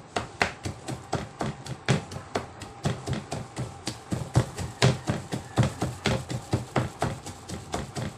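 Kitchen knife chopping banana heart (banana blossom) on a cutting board: a quick, even run of knocks, about three to four a second, as it is minced finely.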